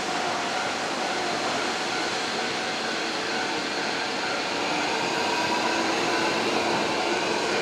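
Hankyu electric train running past along the platform: steady rumble of wheels on rail with a few faint running tones over it, growing slightly louder about five seconds in.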